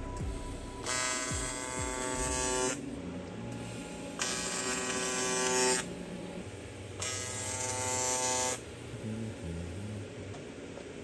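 AC TIG welding arc on an aluminum intake pipe, buzzing in three short runs of about two seconds each, with pauses of a second or so between them.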